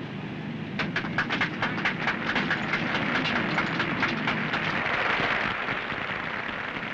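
A crowd applauding: many quick, irregular claps begin about a second in and thicken into a steady wash of applause that eases off near the end.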